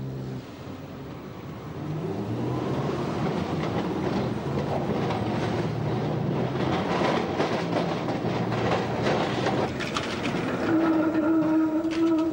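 Electric tram running over the points and crossings of a tramway junction: a steady rumble from about two seconds in, with wheels clattering over the rail joints. A steady high tone joins near the end.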